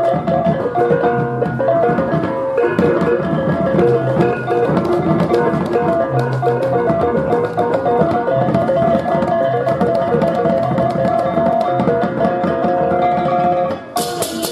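Balinese baleganjur gamelan playing: dense, fast interlocking strikes of cengceng hand cymbals and kendang drums over sustained pitched gong tones. Near the end the sound dips briefly, then returns brighter.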